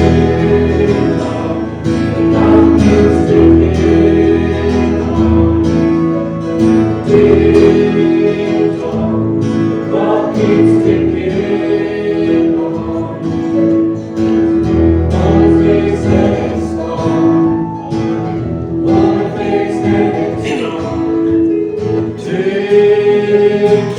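Music: a gospel-style song sung with guitar accompaniment.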